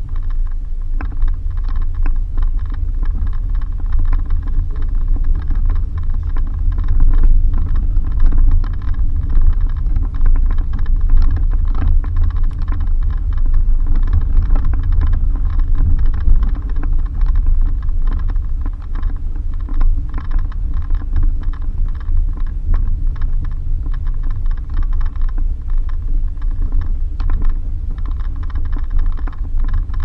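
Suzuki Jimny driving on a rough dirt road: a steady low rumble with frequent small rattles and knocks from the bumpy surface.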